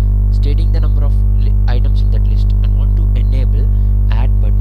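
Loud, steady electrical mains hum with a stack of buzzing overtones, unchanging throughout, with a faint voice over it.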